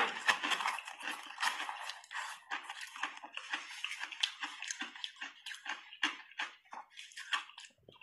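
Close-up chewing of a mouthful of soft shaved ice: a dense, wet crunching for the first couple of seconds, then a run of short, separate crunches.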